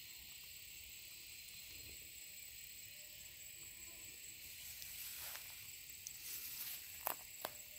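Steady high hiss with a faint thin whine in it. About five seconds in comes a short stretch of rustling, then two sharp clicks close together near the end.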